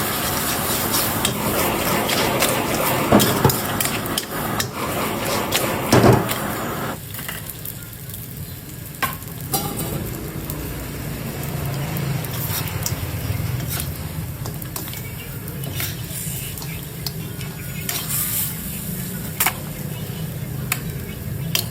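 Crabs and glass noodles stir-frying in a pan: sizzling, with a spatula clicking and scraping against the pan. The sizzle drops away about seven seconds in, leaving quieter stirring and occasional clinks.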